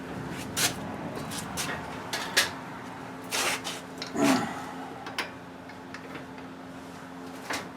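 Scattered metallic clinks, knocks and scrapes of a socket and wrench being handled on a car wheel's lug bolts during tightening, with a faint steady hum underneath.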